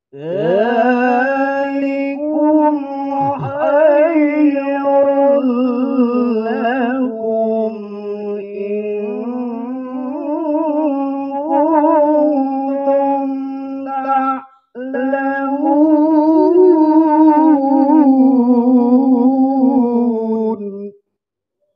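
A male qari's melodic Quran recitation (tilawah) into a handheld microphone: long ornamented phrases, the pitch held and then wavering in melisma. Two long phrases, with a short break for breath about two-thirds of the way through.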